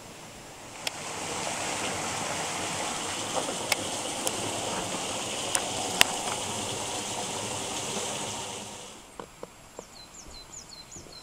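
Steady rush of flowing water, like a stream, swelling in about a second in and fading away near the end, with a few sharp clicks over it. A run of quick, high, falling chirps near the end.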